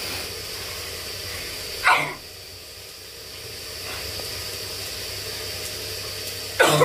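A person sneezing twice, once about two seconds in and again near the end, each sneeze a sudden loud burst that drops in pitch. The sneezes are set off by pungent chilli fumes from cooking.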